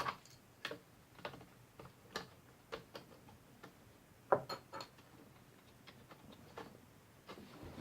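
Light, irregular clicks and taps of a laptop's cooling fan and plastic parts being handled and fitted into place, with one sharper click about halfway through.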